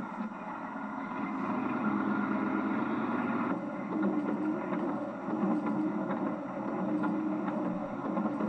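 A car driving along a road: steady engine and road noise with some rumble.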